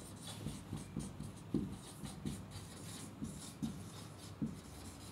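Marker pen writing on a whiteboard: faint, short, irregular strokes of the felt tip on the board.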